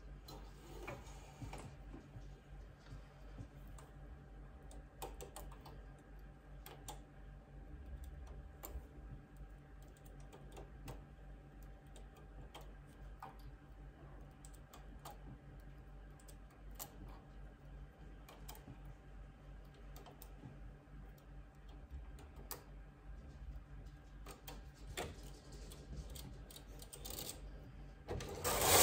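Irregular light clicks of metal knitting-machine needles being handled with a hand tool while the floats are lifted onto them by hand, over a faint steady hum.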